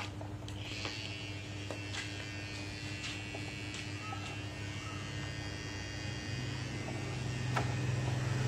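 Steady low mechanical buzzing hum of a running motor, stepping up in pitch and growing louder about six seconds in, with light scattered clicks of wooden toy wheels and parts being handled.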